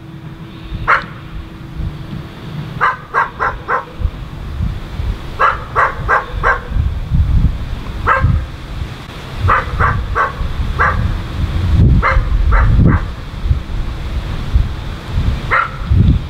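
A dog barking in quick runs of three or four barks, over and over, with a low rumble underneath.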